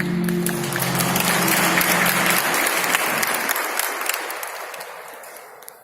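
Audience applauding, over the last held notes of music that stop a couple of seconds in; the clapping then fades out near the end.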